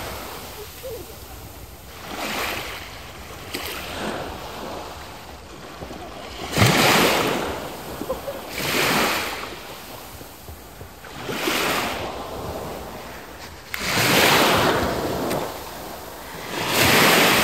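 Small sea waves breaking and washing up the beach, each surge swelling and fading, about every two to three seconds.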